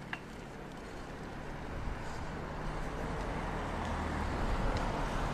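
Road traffic noise: a car's tyres and engine growing steadily louder as it approaches along the street. A brief high chirp sounds right at the start.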